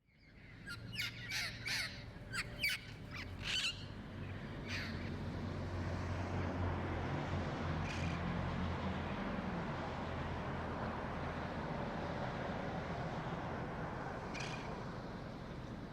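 A quick run of about seven harsh bird calls, then a few single calls spaced several seconds apart, over a steady low rumble.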